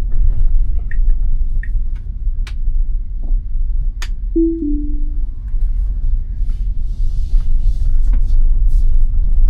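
Low road and tyre rumble inside the cabin of a Tesla Model Y driving on Full Self-Driving, with a couple of sharp clicks. About four seconds in, a short two-note chime steps down in pitch.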